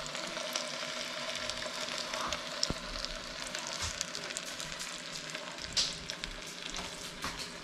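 Salmon fillets frying in butter, olive oil and brown sugar in a frying pan: a steady sizzle with many small crackling pops.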